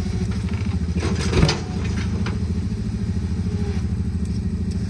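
Engine of a lifted Jeep ZJ on one-ton axles running steadily with an even, pulsing rumble, with one brief louder noise about a second and a half in.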